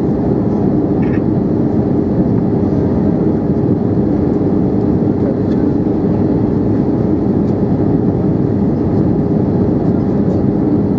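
Steady cabin noise of an Airbus A320-214 in flight on approach: its CFM56 turbofan engines and the rush of airflow, heard from a window seat beside the engine, an even low noise with a faint steady hum.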